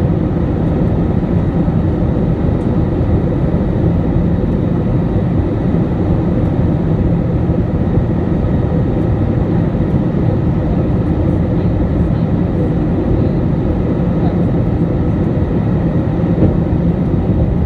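Airbus A320 cabin noise on approach: a steady rumble of engines and airflow, heaviest in the low range, with a faint steady hum above it.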